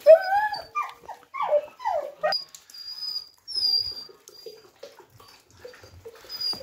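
A dog whining: about five short, high calls that fall in pitch over the first two seconds, then fainter high squeaks.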